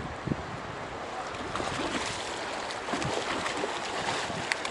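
Hooked salmon thrashing at the surface in the shallows, irregular short splashes over the steady rush of the river current.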